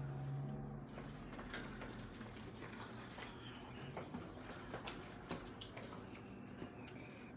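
Scattered light clicks and taps of a utensil against a plastic mixing bowl as a thick ricotta filling is mixed and scooped, over a low hum that is strongest at the start.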